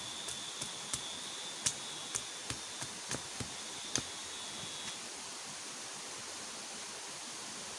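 Steady rushing of a flowing river, with about ten sharp, irregular clicks over the first five seconds and a steady high tone that stops about five seconds in.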